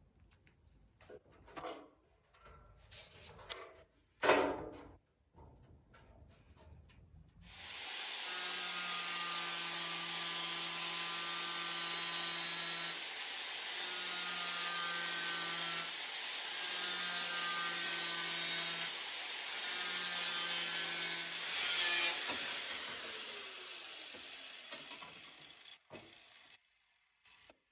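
A few handling clicks and knocks, then a handheld power cutting tool, such as a cut-off wheel or grinder, runs on the steel of a Model T door panel. It has a steady hum and a harsh hiss and runs in four stretches with brief dips. It flares near the end, then spins down with falling pitch.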